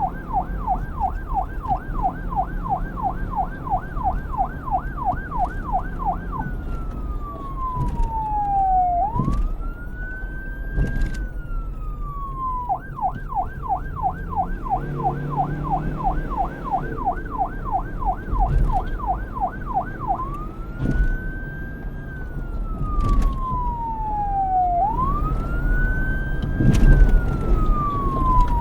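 Electronic police siren switching between a fast yelp of about four rising-and-falling sweeps a second and a slow wail that rises and falls over a few seconds at a time, twice each. A low rumble and a few sharp knocks sound underneath.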